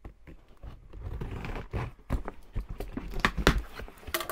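A cardboard shoe box being opened and handled by hand: irregular taps, knocks and rustles.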